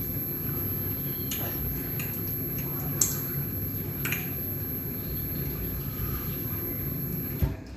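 A steady low hum with a thin high whine, and a few short, light clicks of tableware being handled, four in the first half.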